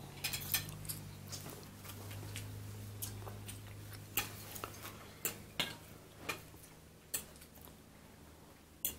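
Cutlery clinking and tapping against plates and dishes during a meal: about a dozen short, sharp, irregular clinks, over a low steady hum.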